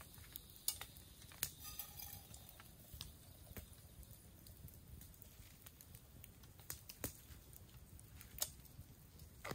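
Small stick campfire crackling, with scattered sharp pops at uneven intervals over a low, steady background.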